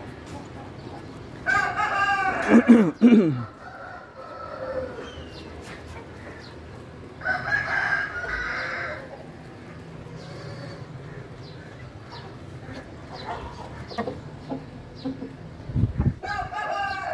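Roosters crowing: a long crow about two seconds in that drops in pitch at its end, another about seven seconds in, and a third starting near the end.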